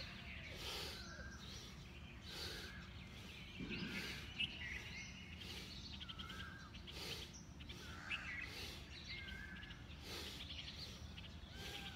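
Birds chirping and calling repeatedly, short whistled and trilled notes, over a steady low background rumble.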